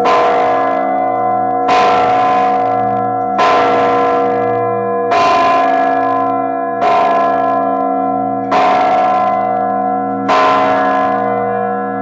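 A large new church bell struck by its clapper via a hand-pulled rope, seven strikes at an even pace, about one every second and three quarters, each left ringing into the next with the same deep, humming tones.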